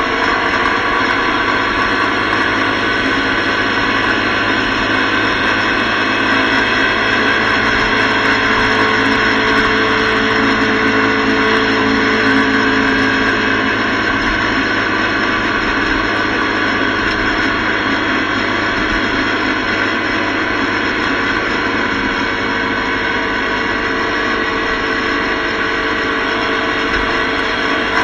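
Motorcycle cruising at highway speed: a steady rush of wind noise on the microphone and road noise, with the engine running underneath.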